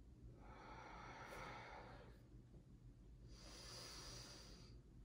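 Faint, slow deliberate breathing: two long breaths, each about a second and a half, with a pause between them.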